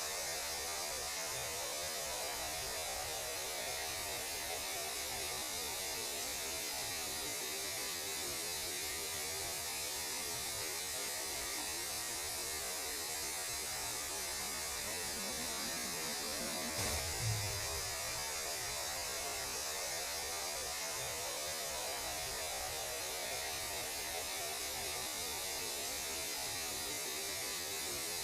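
Steady electronic hiss and hum of radio static, presented as the radio noise of space. There is one brief low thump a little over halfway through.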